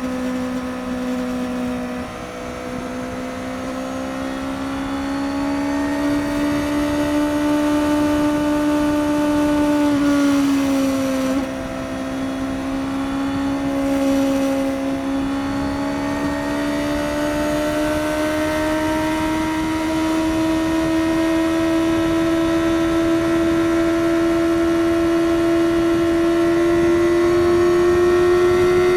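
Suzuki GSX-S750's inline-four engine through its stock exhaust, running at highway speed. Its pitch dips briefly about eleven seconds in, then climbs slowly and steadily as the bike gathers speed.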